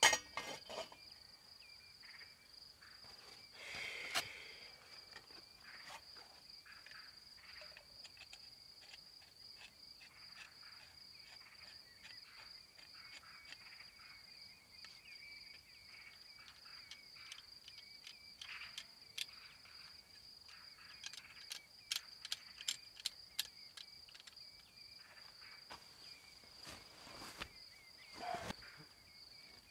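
Crickets trilling steadily, one high continuous trill with a lower pulsing chirp beneath it. Scattered sharp clicks and knocks sound over it, with a quick run of them about three-quarters of the way through.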